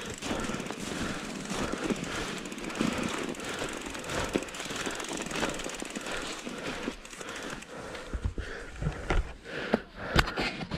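Mountain bike moving through deep snow: a steady rustling, crackling noise, with a few sharp knocks and thumps near the end.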